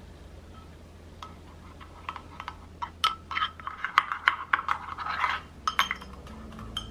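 A metal spoon stirring a dark sauce in a white gravy boat, clinking quickly and unevenly against its sides. It starts about a second in and is busiest in the middle. The sauce is being mixed with cinnamon powder stirred in.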